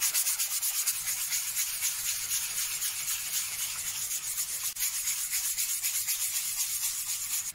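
120-grit sandpaper rubbed by hand over the rounded edge of a wooden clock weight, a dry scratchy hiss in quick, even back-and-forth strokes: hand-sanding the wood smooth.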